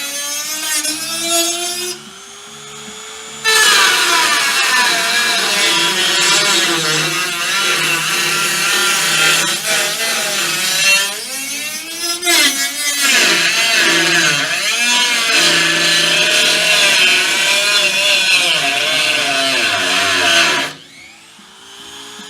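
Hand-held power tool running on the truck's metal during cab corner rust repair, its pitch sagging and recovering as it is loaded and eased off. It pauses briefly about two seconds in, then runs again and stops shortly before the end.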